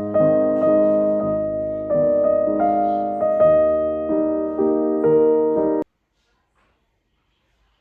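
Piano music: slow chords, a new one struck about every half second, cutting off suddenly near the end.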